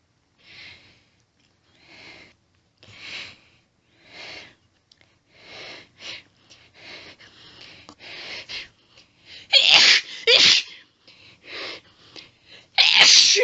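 A woman's sneezing fit. A run of hitching, gasping breaths comes about once a second at first, then quicker and more ragged. It builds to two loud sneezes in quick succession about ten seconds in, then after one more breath another loud sneeze near the end.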